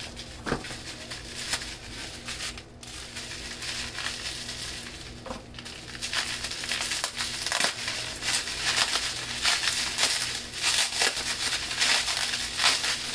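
A small mailed package being opened by hand: plastic wrapping and bubble wrap crinkling and crackling with scattered clicks, growing busier about halfway through.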